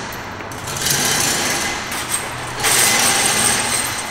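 Hand chain of a manually operated roll-up steel warehouse door rattling through its hoist as it is pulled hand over hand, the door rolling up. The rattling comes in two long spells.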